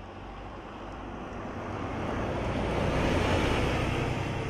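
Mercedes-Benz Tourismo coach driving past: its diesel engine's low drone and its tyres on the road build up, are loudest about three seconds in as the coach passes, then begin to fade.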